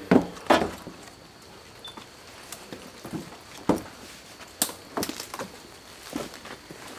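Footsteps of people hurrying out through brush and undergrowth: irregular sharp steps, about one to two a second, with the loudest pair right at the start.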